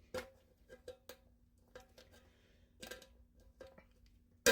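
Metal tool clicking and scraping against the lid of a sealed food can, in a few short, separate clicks.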